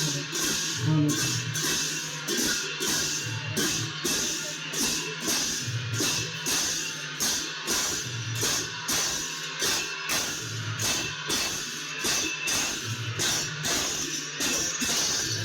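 Gayan-bayan devotional music: khol drums and cymbals playing a steady, driving rhythm.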